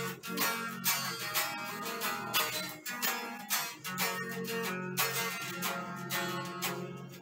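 Golden Les Paul-style electric guitar played through a Boss ME-80 effects unit and a Frahm MF 12V BT amplifier. Chords are picked in a steady rhythm, with sharp strokes several times a second over ringing notes.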